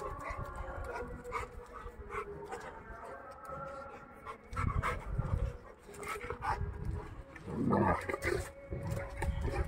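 A St. Bernard and a Rottweiler wrestling: dog growls and panting in rough spells, the loudest about eight seconds in.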